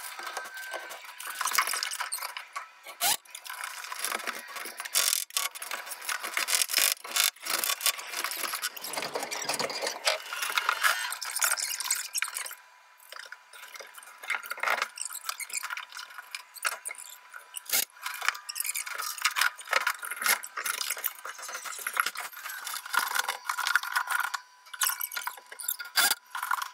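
Fast-forwarded sound of roof truss framing on a wooden shed: a rapid, irregular jumble of sharp knocks and clicks from fastening lumber, thin and high-pitched from the speed-up. It eases off for a couple of seconds about twelve seconds in.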